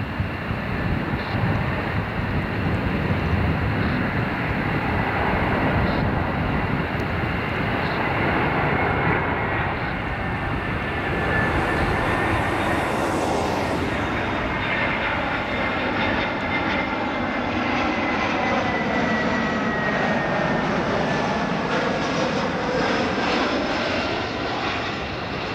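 Jet engines of an Airbus A320 on final approach with gear down, a steady rumble with a thin high whine that drops slightly in pitch near the end as the airliner comes close.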